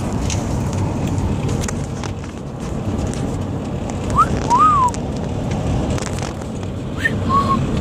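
Steady road and engine noise inside a moving vehicle's cabin, with a few brief high-pitched squeaks about four seconds in and again near the end.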